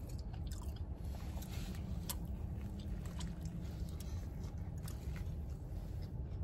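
A person chewing a big mouthful of chicken Big Mac sandwich, with small wet mouth clicks and crunches scattered through, over a steady low hum.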